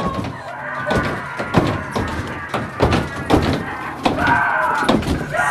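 Irregular loud thuds and bangs, knocks coming in quick clusters, with a shrill voice crying out a little after four seconds in.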